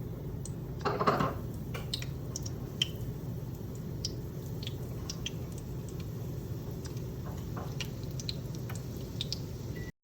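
Kitchen handling sounds: scattered small clicks and taps, with a louder soft squishy scrape about a second in, over a low steady hum.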